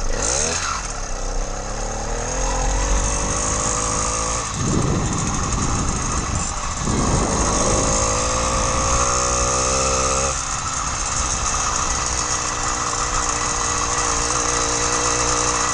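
80cc two-stroke motorized-bicycle engine pulling away under throttle, its pitch rising in stretches as the bike gathers speed, dropping about ten seconds in, then running steadily.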